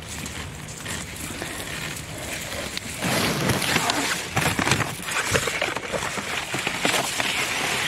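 Rubbing and rustling handling noise from a hand moving right against the phone's microphone, louder and full of clicks and crackles from about three seconds in.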